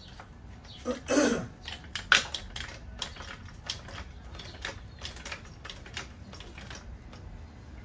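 Hand tools and loose metal suspension parts clicking and clinking as they are handled. There is a louder clank-and-scrape about a second in and a sharp click at about two seconds, followed by lighter scattered clicks.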